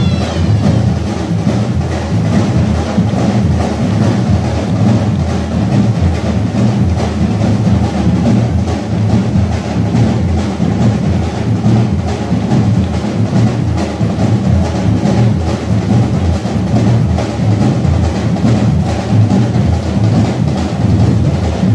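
Drum-led music from a folk parade group, with a steady beat of drums and bass drum.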